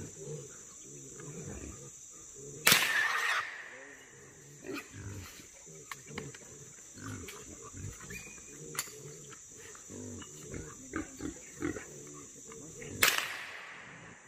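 Wild hogs grunting in a corral trap, cut by two rifle shots about ten seconds apart, one about three seconds in and one near the end; the shots are the loudest sounds and each fades out over about half a second.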